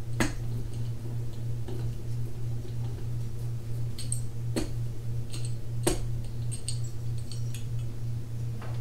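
A few sharp clicks and taps from small hand tools being handled and set down, over a steady low hum.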